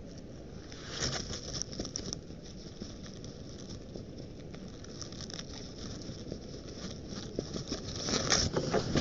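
White-tailed eagle working in the dry grass and twigs of its nest, a close rustling and crackling of dry nest material. It comes in two louder spells, about a second in and again near the end.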